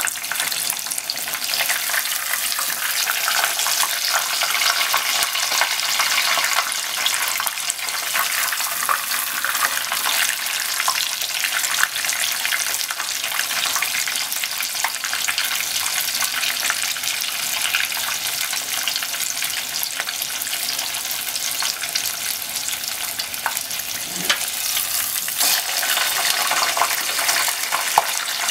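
Breaded pork cutlet (tonkatsu) deep-frying in a pot of hot oil: a steady sizzle with dense, fine crackling.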